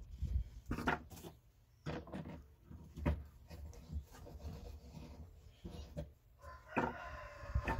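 Tubular socket wrench scraping and knocking on a stuck screw in a chainsaw's air-filter cover as it is forced loose, in irregular rubs and clicks. Near the end a rooster crows.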